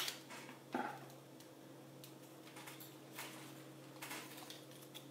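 Faint scattered clicks and light clatter of bead bracelets and small items being handled on a table, over a steady low electrical hum.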